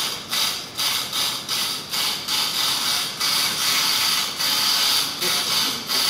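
Electric lock pick gun buzzing as its vibrating pick hammers the pins of a padlock cylinder, in pulses about three times a second at first, then running more steadily before stopping near the end. The pick has been modified to work better, which also made it noisier.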